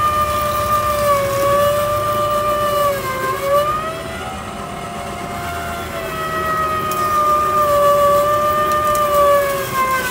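Electric sugarcane juicer crushing a cane stalk between its rollers: a steady motor whine that wavers in pitch, sagging briefly a couple of times as the load comes on. It runs a little higher and quieter for a couple of seconds in the middle.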